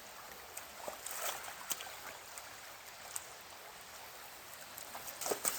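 Mountain stream water running, a steady hiss with a few small splashes or knocks.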